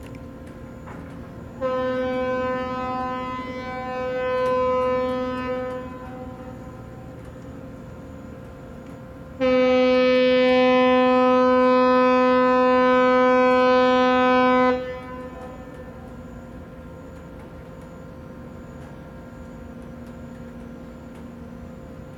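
A ferry's horn sounds two long blasts on the same low, steady pitch. The first lasts about four seconds and wavers in loudness; the second, about five seconds long, is louder and even.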